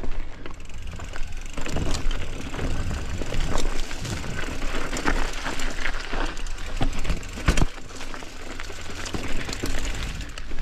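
Mountain bike ridden over rough trail: tyres on dirt and rock, with the bike rattling and many sharp knocks over bumps, over a steady low rumble.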